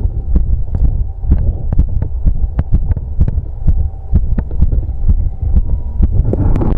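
A man's heartbeat picked up by a chest-piece microphone pressed over the apex of the heart, beating fast after exercise as a quick, even run of thumps over a low rumble. A brief brighter noise comes near the end.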